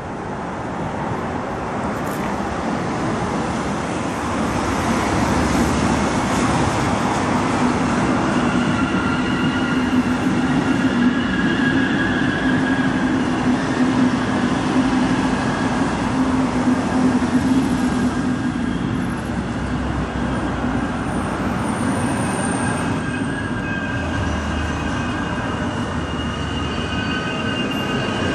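Regional train of double-deck coaches passing on the track: a steady rumbling rush of wheels on rail that builds over the first few seconds and then holds, with a low hum and thin high squealing tones over it.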